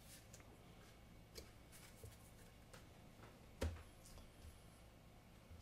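Faint taps and clicks of trading cards being handled and set down on a table, with one sharper tap about three and a half seconds in.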